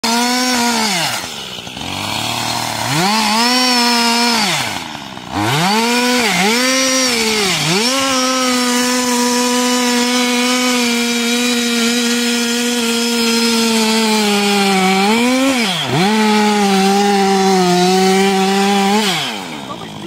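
Two-stroke gas chainsaw at full throttle, cutting deep into the trunk of a large tree during felling. The engine pitch holds high, dips and recovers several times, then drops and gets quieter as the saw is throttled down near the end.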